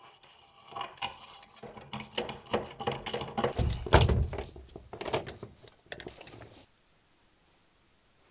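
Handling noise from working fish sticks and electrical cable: irregular clicks, knocks and rustles, with a heavier thump about four seconds in.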